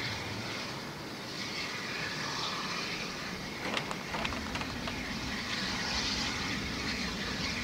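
Railway semaphore signal arm returning to danger, a few sharp metallic clicks and clanks of its mechanism a little under four seconds in, over a steady low background rumble.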